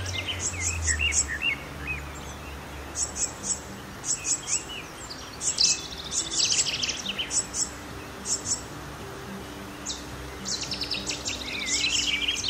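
Common blackbird singing: low fluting whistles at the start and squeaky, high twittering phrases twice. Short runs of three or four very high, thin ticks come back every second or so.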